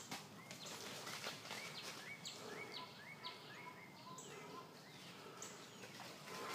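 Faint outdoor ambience with distant bird calls: short rising chirps repeating every fraction of a second over a soft steady hiss.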